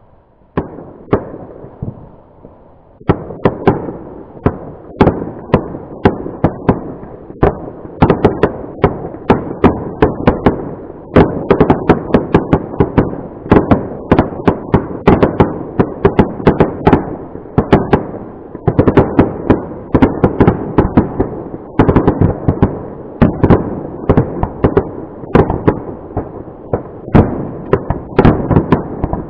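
Fireworks display: a few scattered bangs, then from about three seconds in a dense, continuous barrage of bangs several a second over a steady rumble.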